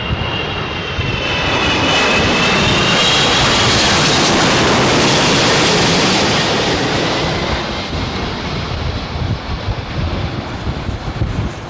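Airbus A350-900 airliner's Rolls-Royce Trent XWB jet engines passing close overhead on the landing approach: a loud rush of engine noise that swells for the first couple of seconds, holds, and eases off in the second half, with a high whine that slides slightly down early on.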